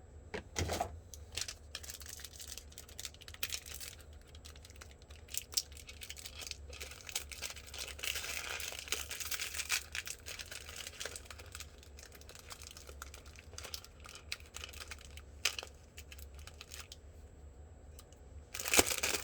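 Hands working with wiring and small parts: scattered clicks, scrapes and crinkling, with a louder cluster of clicks near the end.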